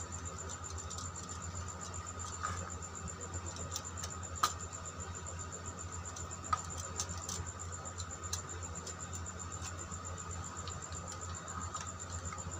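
Light clicks and scratches of copper wire and plastic as the phase wire is fitted onto the terminals of a switchboard's switches. The sharpest click comes about four and a half seconds in, another about two seconds later. A steady hum runs underneath.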